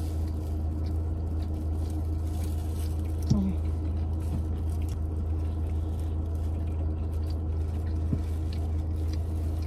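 Two people chewing mouthfuls of liver wrap, with soft squishing and small crinkles of the plastic wrappers, over a steady low hum inside a car cabin. One short pitched murmur from a voice about three seconds in.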